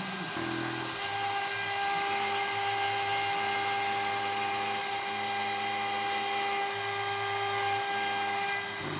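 CNC router at work on acrylic: the spindle gives a steady high whine, while the stepper motors hum lower and change pitch in steps every second or so as the axes move.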